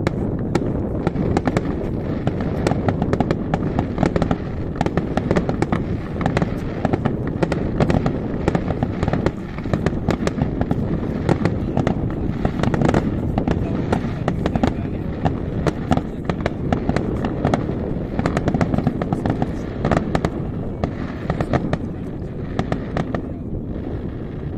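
Fireworks display: a continuous barrage of aerial shell bursts and crackling, many bangs a second over a constant rumble, thinning a little near the end.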